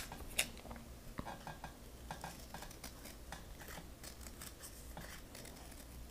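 Scissors snipping through folded paper in short, irregular cuts, with one sharp click about half a second in.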